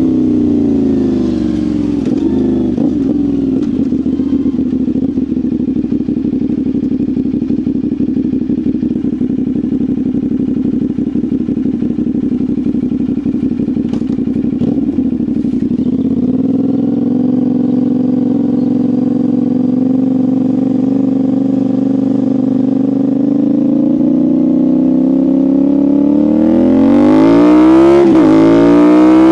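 CFMoto 450SR's parallel-twin engine and exhaust under way. Revs fall at first, then hold steady for a long stretch and settle a little lower about halfway. Near the end they climb hard, with a quick gear change.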